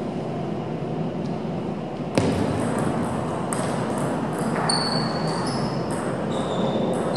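Table tennis balls clicking off rackets and the table, with short high pings on the bounces; the hits start about two seconds in and come irregularly.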